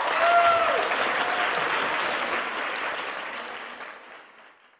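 Applause: a crowd clapping and cheering, with a short whistle in the first second, fading out near the end.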